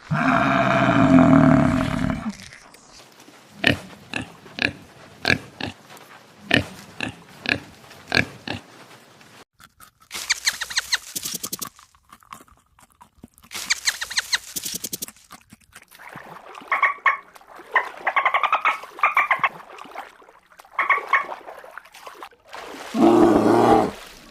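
A series of animal calls and grunts in quick succession: a loud call at the start, a run of short grunts about one a second, two bursts of rapid clicking, then a string of higher calls and another loud call near the end.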